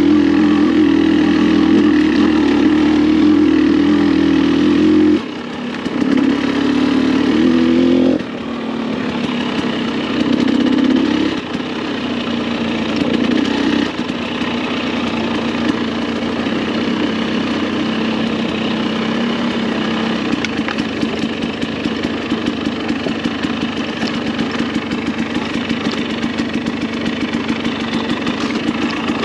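Dirt bike engine running under changing throttle, its pitch stepping up and down every few seconds, then settling to a steady idle with a fast even putter about halfway through.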